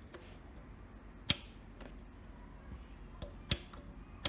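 The input selector on a Sansui 7000 receiver being turned, its rotary switch clicking sharply from position to position, about five clicks at uneven intervals, three of them loud.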